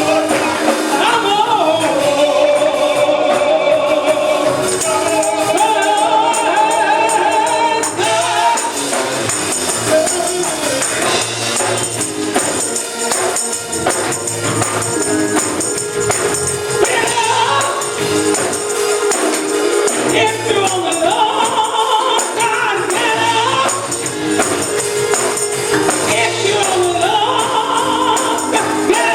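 A group of voices singing a gospel song over a continuous rattling percussion beat.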